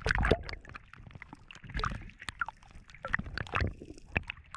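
Water splashing and sloshing at the surface, with irregular sharp clicks and knocks; loudest in a burst right at the start.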